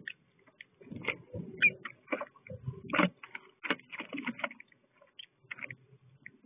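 Irregular clicks, taps and rustling of an adult purple martin moving about inside a metal nest compartment lined with dry leaves, its bill and feet knocking on the box and shuffling the leaves. The loudest knock comes about three seconds in.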